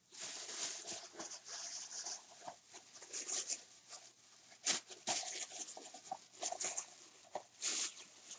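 Plastic carrier bag crinkling and rustling in irregular bursts as hands rummage through it.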